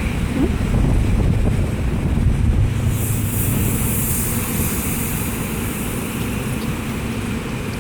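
Strong wind buffeting the microphone, a steady low rumble, with a higher hiss setting in about three seconds in.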